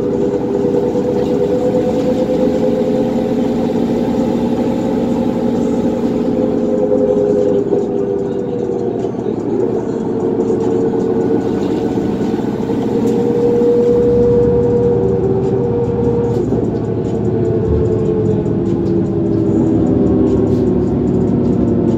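Cummins ISL diesel engine and drivetrain of a 2004 New Flyer D40LF transit bus heard from inside the cabin while under way: a steady drone with several held whining tones. It gets louder about two-thirds of the way through, and the tones fall in pitch near the end.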